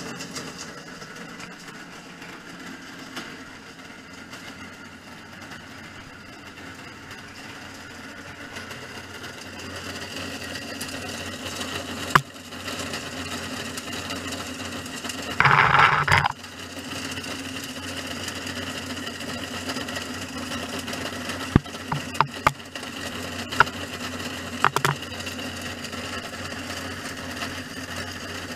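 Slow-speed plastic granulator running, its geared-motor-driven rotor grinding glass-filled nylon parts with a steady mechanical sound. Sharp cracks come as pieces break in the cutting chamber, with a loud crunching burst about halfway through and a cluster of cracks in the last third.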